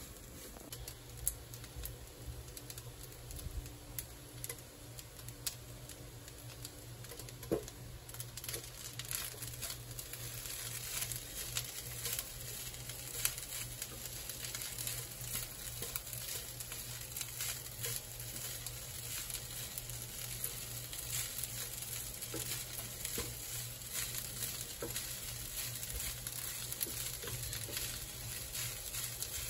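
Egg fried rice being stir-fried in a nonstick pan: a spatula scraping and tapping against the pan over a sizzle that grows louder about a third of the way in.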